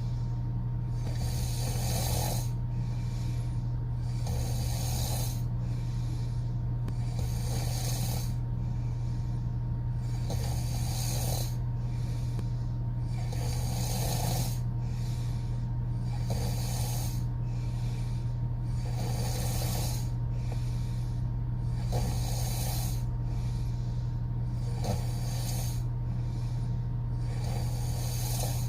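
A woman snoring through her open mouth: a steady, even rhythm of rasping, airy breaths, about one every one and a half seconds.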